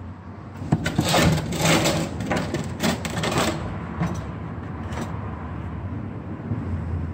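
Clattering and scraping as a plastic fuel can is slid across a concrete floor and set under a car's exhaust pipe as a support, busiest in the first few seconds, then a few lighter knocks.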